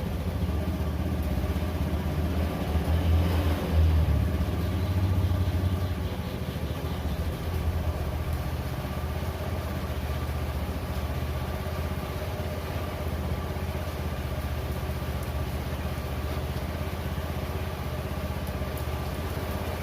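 Rebuilt 110 cc single-cylinder four-stroke engine of a Honda Beat FI scooter running, revved up a couple of times in the first few seconds, then idling steadily.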